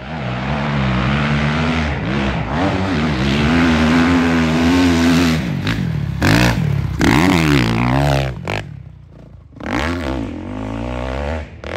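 Dirt bike engine revving hard on a hillclimb run, its pitch rising and falling as the throttle is worked. It drops away briefly about three quarters through, then picks up again.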